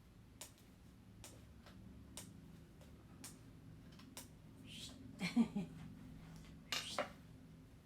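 Scattered light clicks and taps of hand tools and hardware during furniture assembly, with a brief low wavering sound about five seconds in and a louder scrape near the end.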